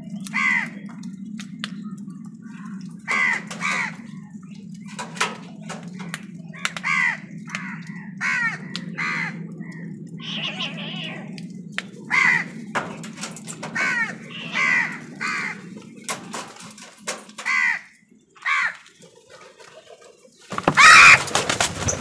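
House crows cawing again and again, short harsh caws a second or two apart, over a steady low hum that stops near the end. Just before the end a loud rush of wingbeats and caws as the flock takes off.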